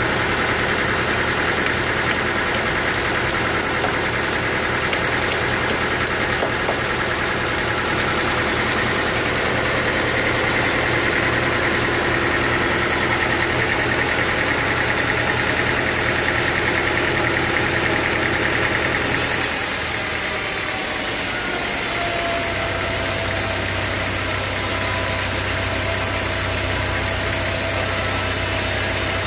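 Sawmill machinery running steadily, engine and saw together. About nineteen seconds in the sound changes abruptly to a lower, pulsing engine note with more hiss.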